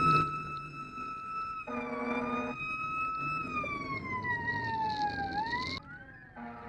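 Fire engine siren sounding: a steady tone that slowly falls in pitch, rises again briefly and cuts off about six seconds in. A short blast of the truck's air horn comes a couple of seconds in and again near the end, and a second siren wails up and down at the close.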